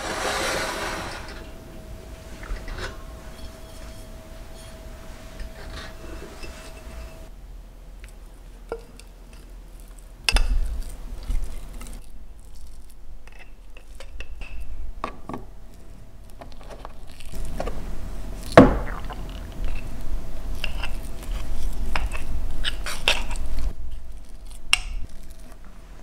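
Metal spoon clinking and scraping against a glass jar as thick soybean paste is scooped and packed into it, in scattered knocks and scrapes; one sharp knock about two thirds of the way through is the loudest.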